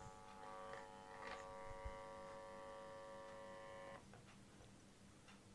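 Steady electrical buzz with several overtones from the speaker just powered on through its newly fitted PAM8610 class D amplifier board, cutting off suddenly about four seconds in and leaving a fainter low hum. A few faint ticks sound over it.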